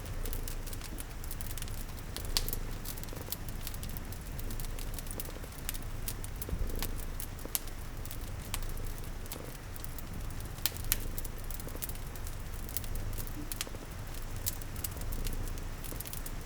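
A cat purring in a low, steady rumble, mixed with crackling wood fire pops (sharp clicks scattered throughout) and a soft patter of rain.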